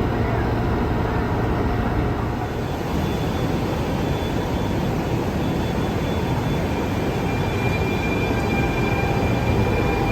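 Train running on rails with a steady rumble. A faint high steady tone, like wheel squeal, comes in about two-thirds of the way through.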